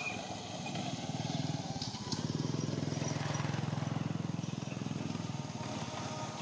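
A small vehicle engine passing. It grows louder about a second in, runs steadily with an even low buzz, and fades near the end.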